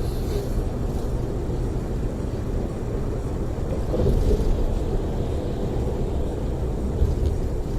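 Steady low rumble of a tour coach's engine and tyres at freeway speed, heard inside the passenger cabin, swelling slightly about four seconds in.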